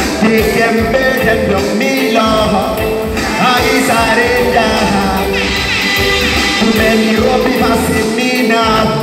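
Loud amplified music: a man singing into a handheld microphone over a backing track with heavy bass.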